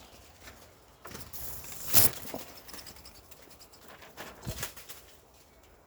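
Rustling and scraping with a sharp clatter about two seconds in and a dull knock a little later, as the duck tent is disturbed with a stick while the trapped kite moves inside.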